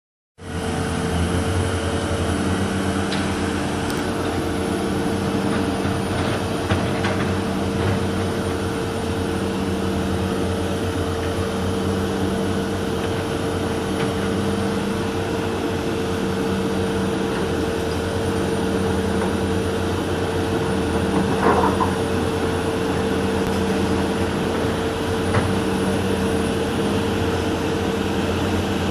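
Sunward SWDM28 rotary drilling rig running steadily: a constant whine over a low hum that pulses about every second and a half, with a few light knocks.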